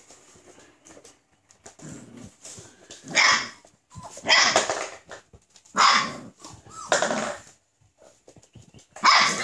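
Boxer puppies barking: four short, high barks about a second apart starting about three seconds in, and another near the end.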